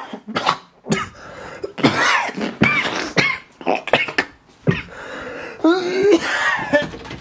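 A man coughing hard again and again, with strained, pitched vocal sounds between the coughs: his throat is burning from food seasoned with pepper spray.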